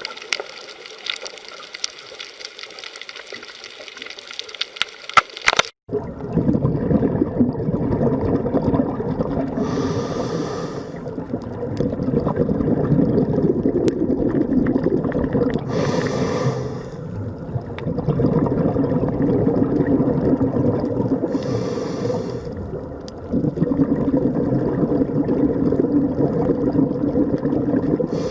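Water sounds: a rushing, gushing water noise for about the first six seconds, then after an abrupt cut a steady low bubbling underwater sound, with a short hiss about every six seconds.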